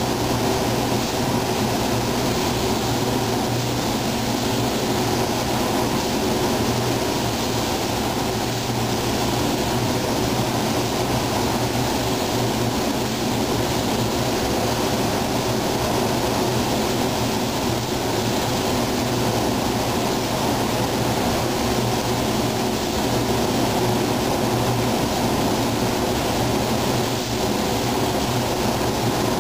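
Steady rushing hiss of air in a car paint booth as a gravity-feed spray gun sprays paint, with a low steady hum underneath.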